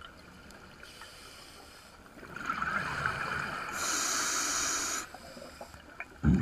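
A diver breathing through a scuba regulator underwater: quiet at first, then one breath of rushing hiss and bubbling from about two seconds in that lasts about three seconds. A sharp low thump near the end is the loudest sound.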